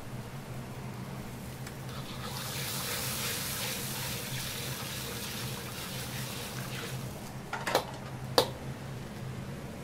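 Steady low hum of a commercial wok range, with a watery hiss that swells about two seconds in and dies away after about seven seconds as a metal ladle stirs steaming sauce in a carbon-steel wok. Near the end, two sharp metallic clicks: the ladle knocking against the wok.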